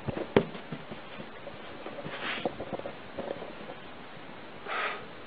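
A kitten hissing twice, short hisses a couple of seconds apart, with a sharp knock just after the start and faint taps of its paws in between.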